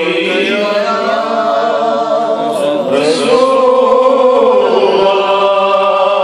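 A man chanting a naat into a microphone, unaccompanied, in long drawn-out melodic phrases with slow pitch glides.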